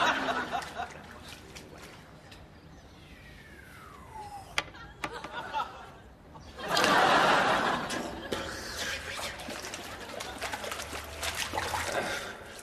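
Audience laughter swelling up about seven seconds in and dying away, preceded by a couple of sharp clicks.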